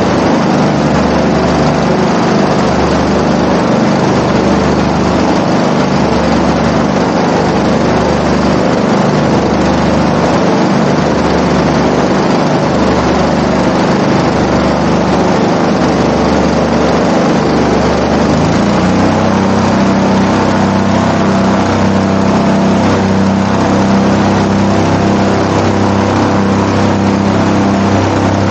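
Airboat engine and air propeller running at speed, with a slow low throb about once a second. About two-thirds of the way in the engine note shifts to a steadier, more even tone.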